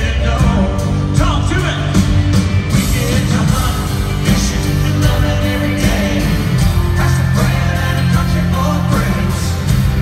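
Live country song: a male lead vocal sung over acoustic guitar, keyboards and a full band with a steady beat, heard from the audience in an arena.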